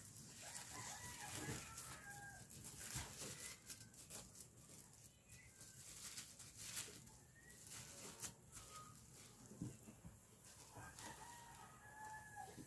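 Faint rustling and crinkling of tissue paper and sisal mesh being smoothed and handled by hand, with short, faint calls from a bird or fowl in the background every second or two.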